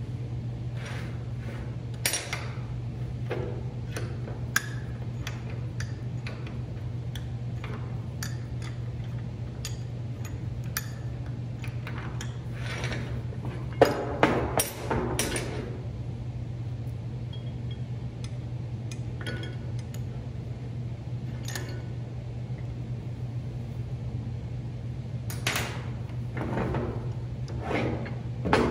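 Columbian bench vise being handled on a steel fabrication table: scattered metal clanks and clinks as it is tilted, shifted and its handle slides in the screw, with the loudest burst of knocks about halfway through and more near the end. A steady low hum runs underneath.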